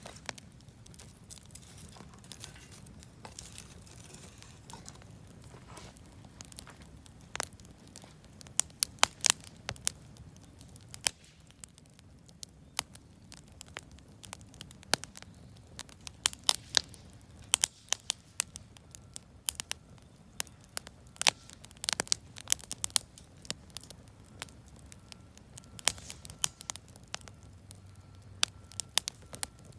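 Campfire of wood offcuts and firewood crackling, with sharp irregular pops over a low steady hiss; the pops come thicker after the first several seconds.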